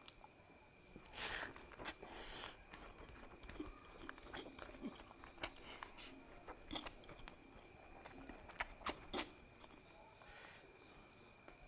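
A person chewing and eating food close to the microphone: irregular wet mouth clicks, smacks and soft crunches, with three sharp clicks in quick succession about nine seconds in. A faint steady high whine sits underneath.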